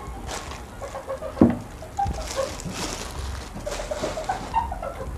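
Handling noise of small plastic cube computer speakers being unpacked: light rustling of the plastic bag and packing, scattered clicks, and one sharp knock about a second and a half in as a speaker is set down or bumped.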